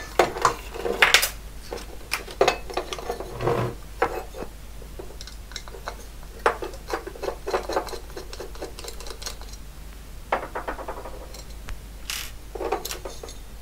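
Irregular light metallic clicks, scrapes and knocks as a screwdriver turns out the ground-strap screw and the tape drive's front cover is handled. The sounds are a little louder and closer together in the first second or so.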